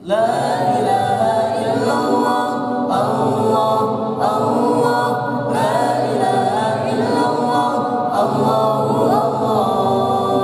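A small group of young male voices singing an Islamic devotional song together without instruments, coming in suddenly and then holding steady.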